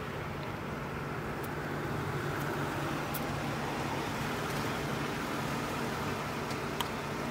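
Toyota Sienna minivan running, heard from inside the cabin: a steady low engine hum under road noise, with a few faint small clicks.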